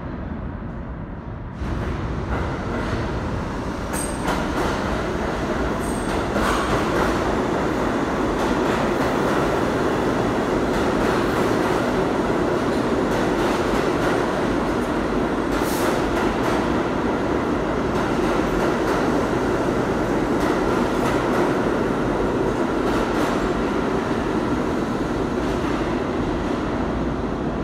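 R32 subway train running through the station at speed without stopping: a steady, loud rumble of steel wheels on rail with scattered clicks, starting suddenly about a second and a half in. Brief high wheel squeaks come about four and six seconds in.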